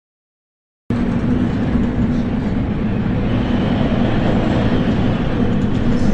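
Storm wind and heavy seas around a tanker ship under way, a loud steady roar with a low steady hum under it, starting abruptly about a second in.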